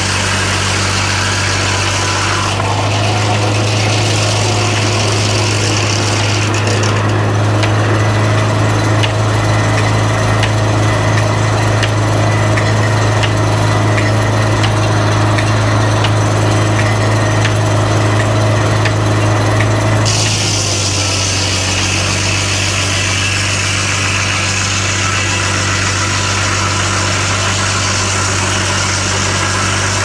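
Antique Farquhar circular sawmill driven by a tractor's flat belt: a steady engine hum that grows louder from a couple of seconds in as the big blade works through a log, then drops back abruptly about two-thirds of the way through as the cut ends and the blade runs free. Faint, evenly spaced ticks sound through the middle of the cut.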